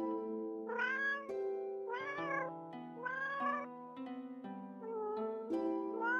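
A cat meowing about five times, each meow about half a second long, rising then falling in pitch, over soft music with long held notes.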